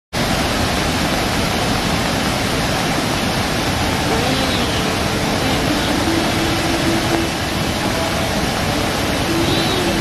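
Waterfall in full spate: a large volume of muddy water rushing and churning over rock, a loud, steady, even rush of water noise.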